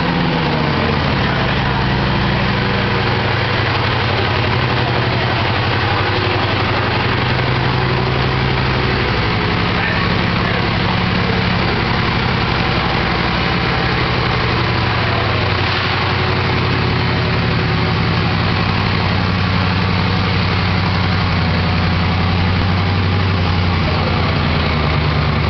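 Bugatti Veyron's quad-turbo W16 engine idling steadily, its pitch dropping at the very start as it settles.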